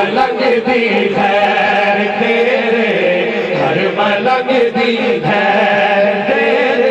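Dhikr chanting: voices chanting a devotional remembrance chant without a break.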